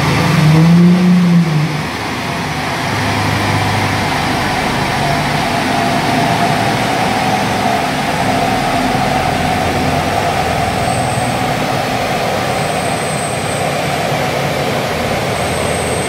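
Tuned Audi A5 3.0 TDI V6 diesel with a Milltek exhaust running hard under load. There is a short rise and fall in engine pitch about a second in, then a dense, steady engine and exhaust sound whose pitch creeps slowly upward through the middle.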